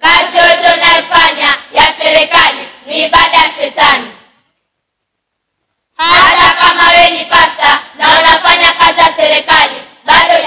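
A group of children singing together in short phrases, with no instruments. They break off for about two seconds midway, then sing on.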